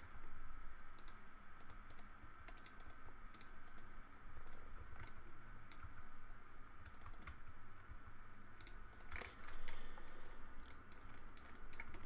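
Quiet computer keyboard and mouse clicks, scattered in short irregular clusters, over a faint steady hum.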